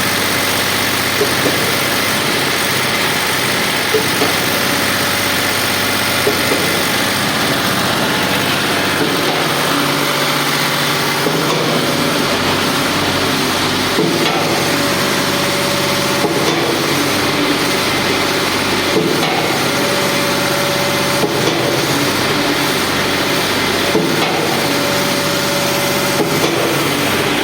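Diesel-engined mini concrete pump running steadily, with a knock about every two seconds as the pumping stroke changes over.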